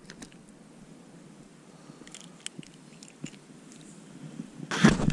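Close handling of a freshly caught bream while it is unhooked: small scattered clicks and wet squishes from hands, hook and fish, then a loud half-second rush of noise near the end.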